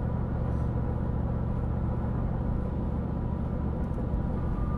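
Steady road and engine rumble of a car cruising at highway speed, about 74 mph, heard from inside the cabin.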